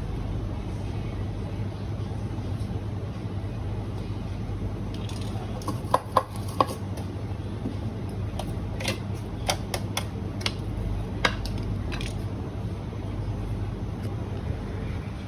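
A scattered run of sharp clicks and light taps, as from hard parts of a coffee grinder being handled and fitted together, over a steady low hum. The three loudest clicks come close together about six seconds in, and the rest are spread over the next six seconds.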